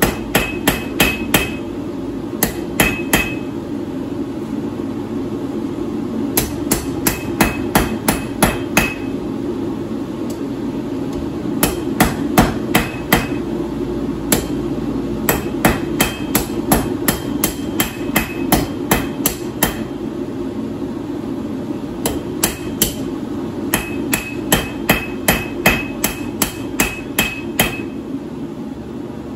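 Hand hammer striking red-hot steel on an anvil in runs of quick blows, about three a second, with short pauses between runs; some blows ring. A steady hum runs underneath.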